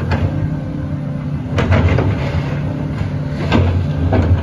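Heavy diesel engine idling steadily with a low drone, broken by a few sharp metallic knocks.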